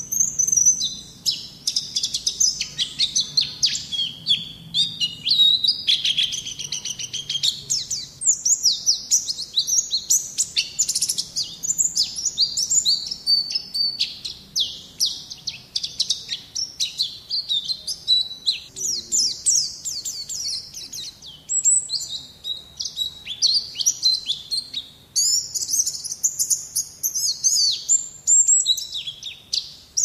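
White-eye (Zosterops, Indonesian 'pleci') singing a long, rapid, high-pitched twittering song of quick chirps and trills, with only brief pauses.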